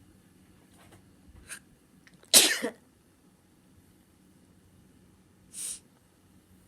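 Sneezing: one loud sneeze a little over two seconds in, then a shorter, fainter sneeze near the end.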